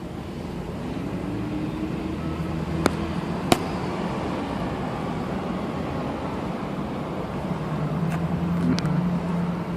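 DJI quadcopter drone's propellers humming steadily over a low outdoor rumble, the pitch rising and falling slightly, with a few sharp clicks.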